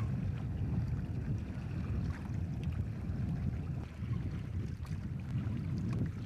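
Wind buffeting the microphone in a low, unsteady rumble aboard a Prindle 18 catamaran under sail, with faint splashes and ticks of water against the hulls.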